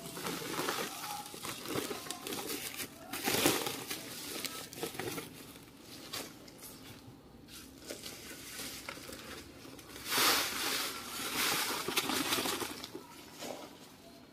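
Loose potting mix being added and worked in by hand around the bonsai's roots: irregular rustling and crinkling, with louder spells about three seconds in and again about ten to twelve seconds in.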